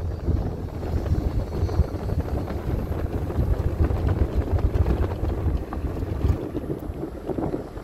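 A car driving, heard from inside the cabin: a steady low rumble of road and engine, with wind buffeting the microphone.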